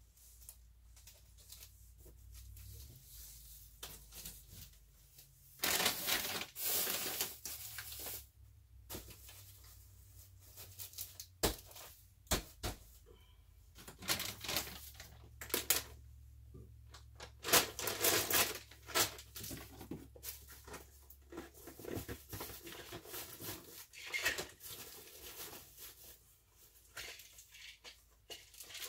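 Plastic bags and clothing rustling and crinkling in irregular bursts, with occasional knocks, as items are pulled from bags and packed into a cardboard box, over a low steady hum.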